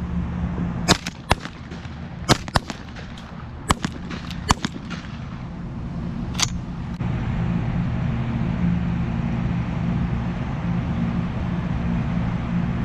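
A volley of shotgun shots, about seven sharp reports over six seconds, some coming in quick pairs, fired at pigeons. A steady low rumble runs underneath and gets louder after about seven seconds.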